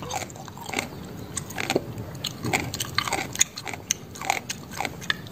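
A person chewing a crunchy mouthful of raw water spinach salad close to the microphone: irregular wet crunches and crackles, several a second.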